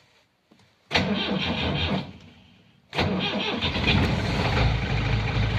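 Perkins 4236 four-cylinder diesel being cold-started at about 1 °C after glow-plug preheating, heard from the cab. The starter cranks for about a second and stops, then cranks again about three seconds in, and the engine catches and settles into a steady idle. It is slow to start, but it starts.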